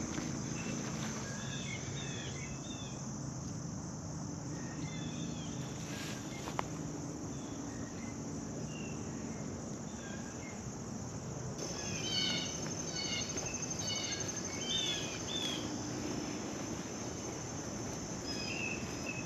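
Crickets and other insects trilling steadily in a chorus, with short chirps scattered through it. A faster pulsing trill joins a little past halfway.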